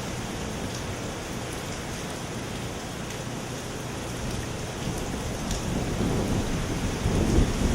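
Heavy rain from a hurricane's outer band, a steady hiss that grows louder over the last few seconds. A deep rumble builds near the end.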